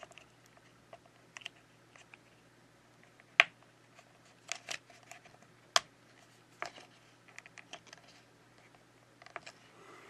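Irregular sharp plastic clicks and taps as a plastic card is worked under the battery connector bracket on an opened iPad Air 4's motherboard to pry the connector off, with two louder snaps about three and a half and six seconds in.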